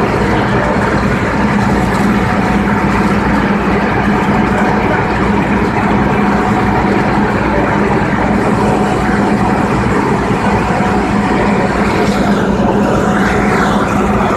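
Fire apparatus diesel engines running at steady high revs to power the pumps feeding the hose lines and the aerial ladder's water stream: a constant loud mechanical drone with a steady hum.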